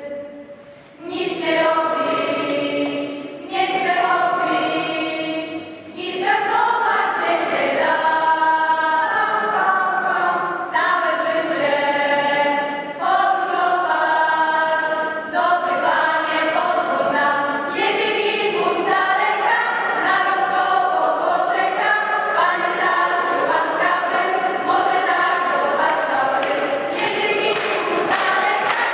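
Mixed choir of teenage girls and boys singing together under a conductor, in held, sustained phrases, with short breaks between phrases about a second in and again around five to six seconds.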